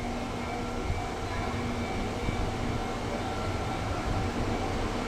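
300 series Shinkansen bullet train rolling slowly past a platform: a steady low rumble with a few faint steady tones from its electric drive, the lowest of which fades out about two seconds in.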